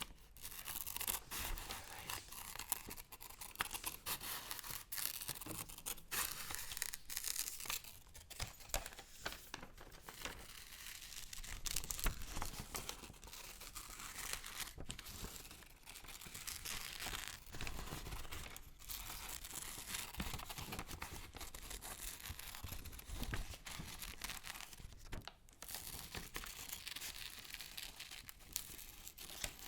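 Paper being handled close to an ASMR microphone: continuous crisp rustling, crinkling and tearing, with many small sharp crackles.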